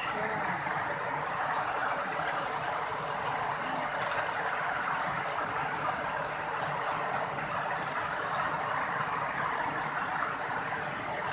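Floodwater rushing fast through a narrow concrete drainage channel: a steady, even rush of turbulent water.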